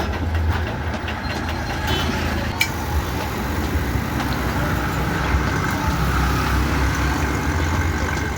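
Steady low mechanical hum of a running motor or engine, with a few faint clicks.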